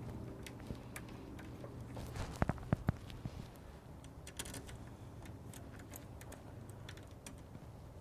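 Small clicks and taps of door-handle hardware and screws being handled and driven in by hand, with a brief cluster of sharper knocks about two and a half seconds in, over a low steady hum.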